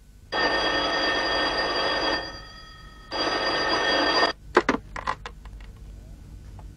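Rotary-dial desk telephone ringing twice, the second ring cut short as the receiver is lifted, followed by a few clicks and knocks of the handset being picked up.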